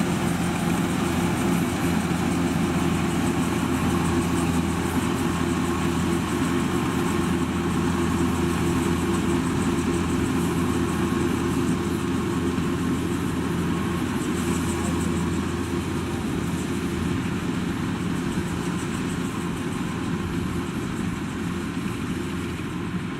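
Combine harvester engine running steadily with a constant low hum, getting a little quieter in the last few seconds.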